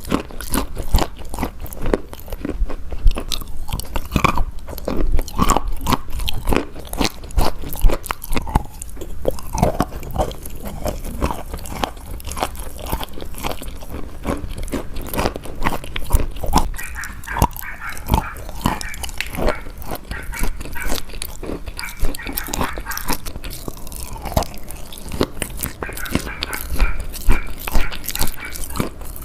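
Close-miked biting and chewing of something crisp: a dense run of sharp crunches and crackles, one after another, with softer chewing between bites.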